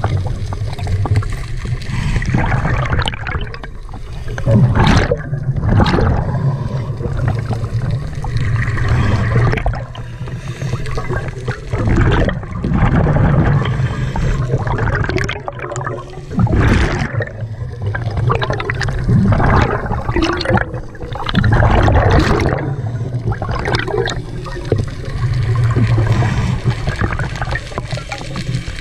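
Scuba diver's exhaled bubbles from a regulator, gurgling in loud surges every few seconds over a steady low underwater rumble, heard through an underwater camera.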